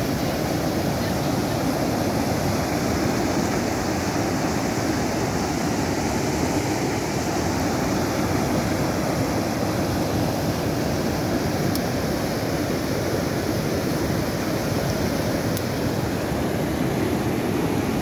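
Muddy floodwater from an overflowing reservoir rushing over a rocky spillway ledge, a steady, unbroken rushing noise.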